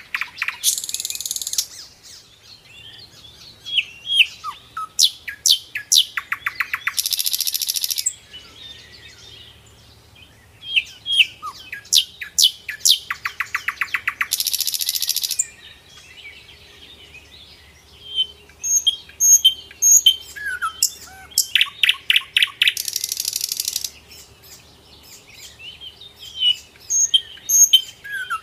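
Songbirds chirping in quick short calls, with a loud buzzy trill of a second or two that comes back about every seven seconds.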